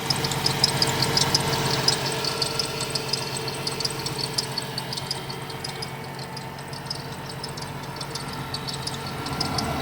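2017 Ford Transit running, with a rapid high-pitched squeak repeating several times a second over the engine's steady hum; the squeak fades a little midway and comes back stronger near the end. It is a squeak whose source four mechanics could not find.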